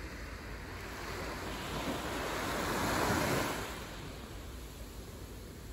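Sea waves washing onto a beach: a steady surf hiss that swells to a peak about three seconds in and then fades, over a low steady rumble.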